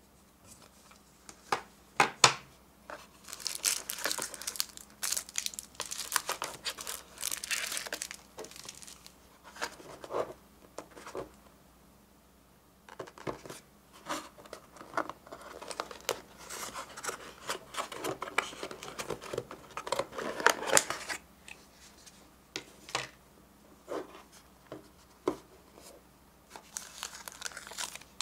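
Plastic packaging crinkling and rustling as wrapped packets and film are handled and pulled from a plastic lunch box, in several spells with quiet gaps, with a few sharp clicks near the start.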